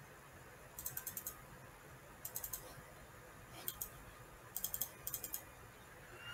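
Computer keyboard keys clicking faintly in several short bursts of a few quick keystrokes each.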